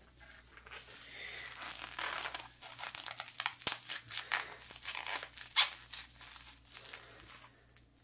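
Plastic bubble wrap crinkling and tearing as a shipped hatching egg is unwrapped by hand, with a sharp click about three and a half seconds in and a louder crackle about five and a half seconds in.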